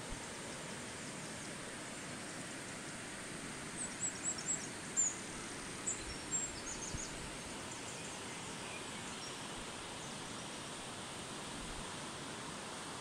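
Steady rush of a river's running water, with a short run of high, quick bird chirps a few seconds in.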